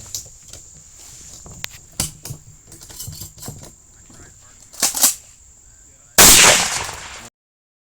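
A single shotgun shot about six seconds in, loud and sudden, its ring cut off sharply about a second later. Before it, faint clicks and low murmuring voices.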